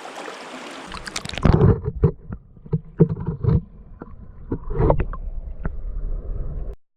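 Creek water rushing steadily for about a second, then muffled, irregular thumps and sloshing of water.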